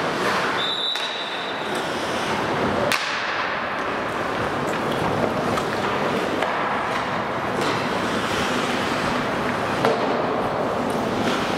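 Indoor ice rink during a hockey scrimmage: a steady hiss of skates on ice, with a few sharp clacks of sticks or puck. A brief high steady tone sounds about a second in.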